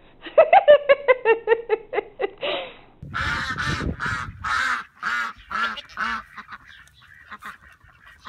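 A quick run of short, high vocal sounds, about five a second, for some two and a half seconds. Then, after a cut, an animal gives a string of short honking calls, about two a second.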